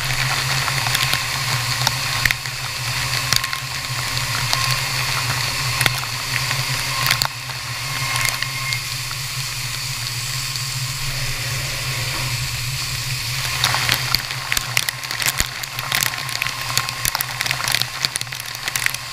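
Flood coolant spraying and splashing inside a CNC vertical mill's enclosure during milling, over a steady low machine hum. Many sharp crackling clicks of spray and chips hitting the enclosure run through it and grow busier about two-thirds of the way in.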